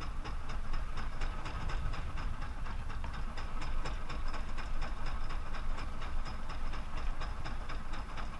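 Boat engine running steadily at slow trolling speed, a constant low rumble with an even mechanical beat, mixed with wind and water noise.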